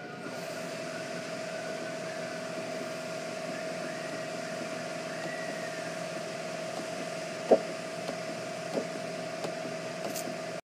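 Steady mechanical hum with one even tone running under it, like a shop fan or air handler. A sharp tick comes about seven and a half seconds in, with lighter ticks after it, as the dent rod pushes the door metal up from behind.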